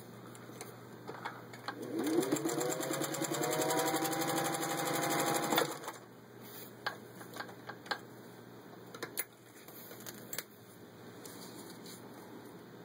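Singer 201-2 sewing machine stitching through four layers of vinyl upholstery: its motor spins up about two seconds in, runs steadily with rapid, even needle strokes for a few seconds, then stops abruptly. A scattering of light clicks and taps follows.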